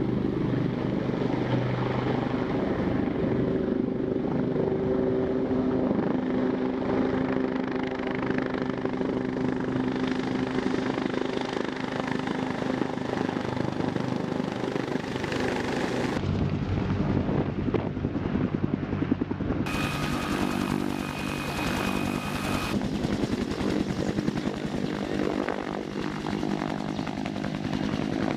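AH-1 attack helicopter flying low and close: a steady drone from its turbine engines with a fast, even beat from the rotor blades. The sound changes abruptly a few times.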